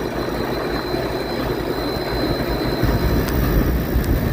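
Air-conditioning condensing unit running with its compressors on and a condenser fan that sounds horrible: a steady mechanical noise with a thin high whine, the low rumble growing louder about three seconds in. The condenser fan motor is bad and overamping, which is tripping the unit.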